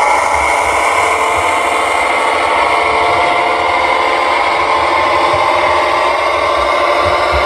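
Lenz V60 model diesel shunting locomotive running along the track, with a steady diesel-engine drone and the model's motor and wheel noise.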